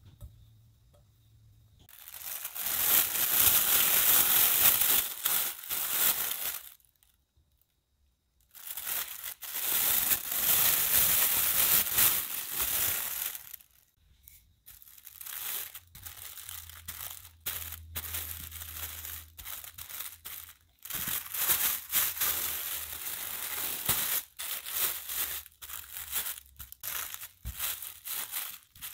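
Clear plastic sheet crinkling loudly as it is handled, in two long spells with a short pause between. From about halfway through, irregular crinkling and rustling as a wooden rolling pin rolls cookie dough flat inside the plastic.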